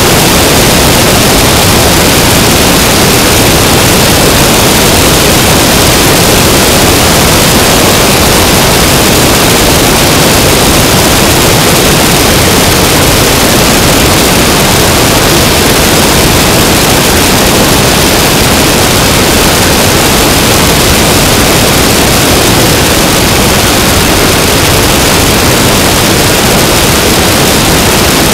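Loud, steady rush of wind and engine noise from an Aeronca 11AC Chief in flight, picked up by a camera mounted outside the fuselage. It is an even hiss with no distinct engine beat.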